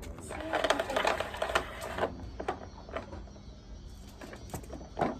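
Rapid clicking and clattering, dense for about the first two seconds, then scattered single clicks and a louder knock near the end.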